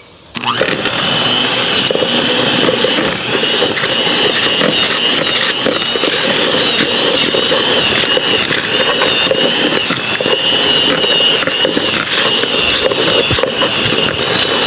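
Electric mixer switched on about half a second in, its motor rising quickly to speed and then running steadily as its beaters shred cooked chicken.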